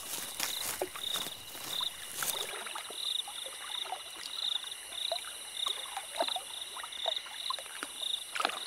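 Wildlife ambience of small calling creatures: a steady high-pitched buzz, with a chirp repeating about twice a second and scattered short clicks and chirps over it.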